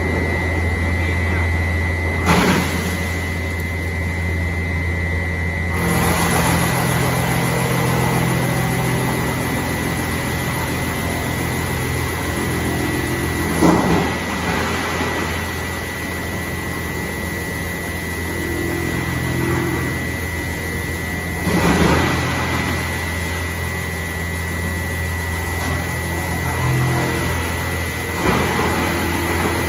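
Drum wood chipper running steadily with a low hum and a thin high whine, broken four times by a short loud burst of noise.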